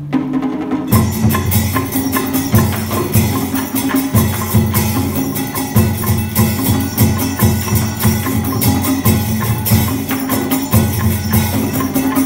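Traditional percussion-led music accompanying a water puppet show: after a held low note, drums and hand percussion strike up about a second in and keep a loud, steady beat of about two strokes a second.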